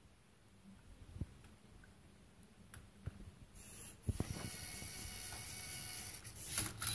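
A few light clicks as a Rubik's cube is set into the tray of a Lego Mindstorms EV3 cube-solving robot. About halfway through, the robot's EV3 servo motors start up with a steady whirring whine, and plastic gears and parts knock and clatter as it moves the cube and swings its colour-sensor arm to scan it.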